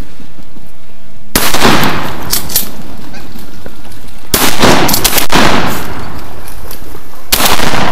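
Four shotgun shots, the middle two less than a second apart, each followed by a long echoing tail.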